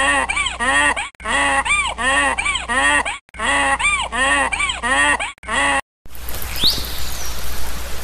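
Donkey braying: a run of loud honking calls, each rising and falling in pitch, about three a second, in bouts with short breaks. About six seconds in it gives way to water sloshing and one short rising squeal of an orca.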